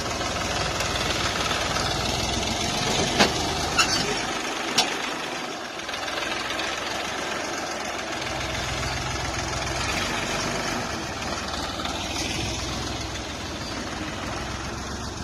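1989 Mahindra 495 DI tractor's three-cylinder diesel engine running steadily. Three sharp clanks come about three to five seconds in. The engine's low note drops away briefly around the middle and then comes back.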